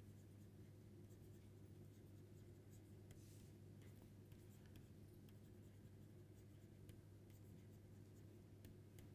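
Faint scratching and light tapping of a stylus writing on a tablet, over a low steady hum.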